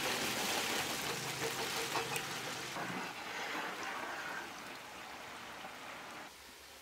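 Hot oil sizzling and bubbling hard as a large batch of cut raw banana pieces is tipped into a big frying pot. The sizzle is strongest at first, eases off after about four and a half seconds, and drops again near the end.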